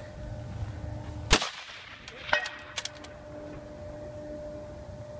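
A single rifle shot from a precision rifle about a second in, followed about a second later by a distant metallic clang with a brief ring, typical of the bullet striking a steel target downrange. A couple of faint sharp clicks follow.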